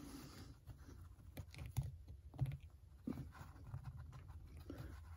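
Faint, scattered small clicks and knocks of a hand tool and metal parts being handled as a bolt is tightened by hand into a machined aluminum hub adapter.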